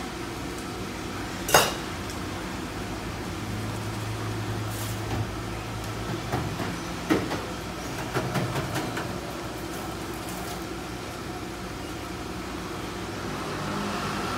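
Sharp knocks and clinks, like hard dishes or utensils being handled, over a steady low hum. The loudest is about one and a half seconds in, followed by a scattered cluster a few seconds later.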